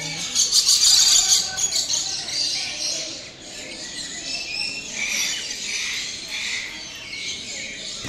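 Many aviary birds chirping and twittering together, with a loud burst of rapid chirps in the first second or so.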